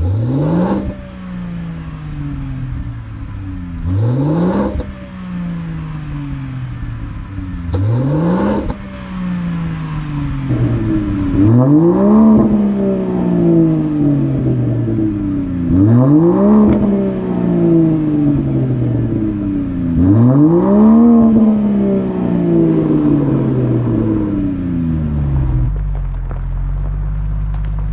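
2024 Range Rover Sport plug-in hybrid's 3.0-litre inline-six petrol engine revved six times while stationary through a valved aftermarket sports exhaust, valves open. Each rev climbs sharply and falls away slowly; the first three are short blips and the last three are held longer and louder. Near the end the revving gives way to a steady low drone.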